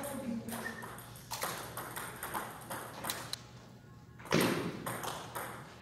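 Table tennis ball clicking sharply off the paddles and the table in a rally, a few separate knocks, with one louder thump about four seconds in.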